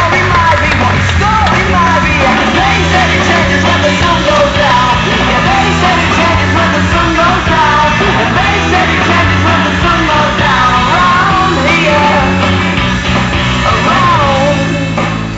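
Loud rock music with singing over a steady bass line.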